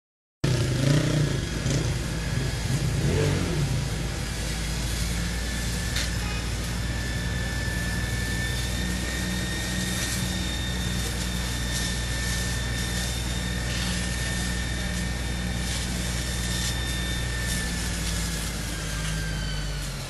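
Fire engine's motor running steadily to drive its water pump while a hose jet sprays. A steady high whine sits over the low engine hum, and both sag slightly near the end.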